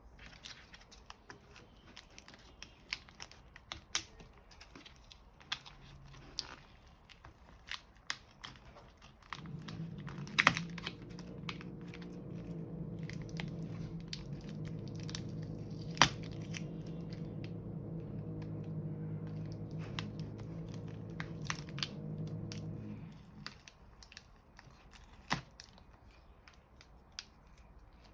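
Scattered clicks and crinkling from small parts and plastic being handled. A steady low hum, like a small motor, starts about ten seconds in and stops about twenty-three seconds in.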